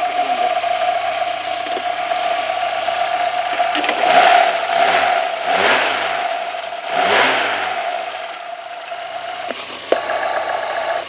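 Running engine of a VAZ Zhiguli, picked up through a wooden listening stick pressed against the microphone: a steady mechanical whine and rattle, with three louder surges about a second and a half apart in the middle.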